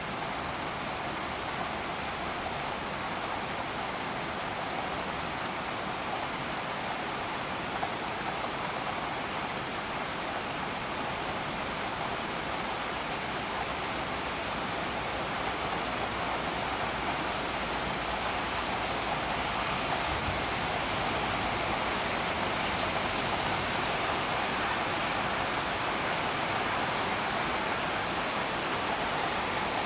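Storm rain falling steadily, an even hiss with no thunder claps, growing slightly louder in the second half.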